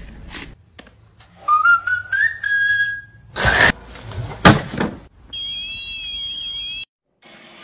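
A rising whistle, then two sharp hits as a moose's hooves strike a robotic lawnmower, then a steady high tone with a warbling edge for about a second and a half.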